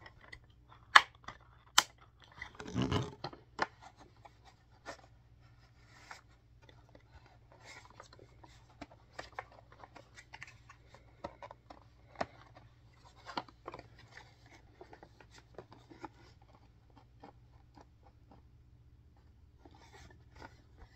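Plastic vacuum parts being handled and fitted together: scattered clicks, taps and rustling, with two sharp clicks about a second in and a brief scraping rustle around three seconds in.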